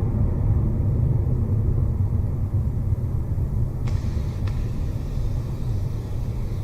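Rocket Lab Electron's first stage, with its nine Rutherford engines, rumbling steadily and deeply during its climb shortly after pitch-over.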